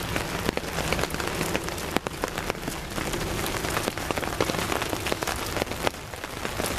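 Steady rain falling, an even hiss with many separate drop taps scattered through it.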